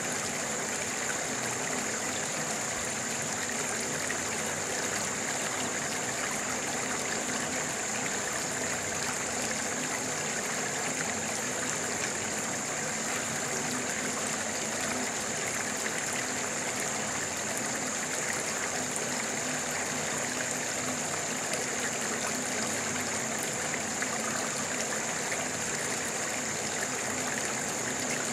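Running water, like a small stream, flowing steadily with an unbroken rushing sound, with a steady high-pitched tone over it.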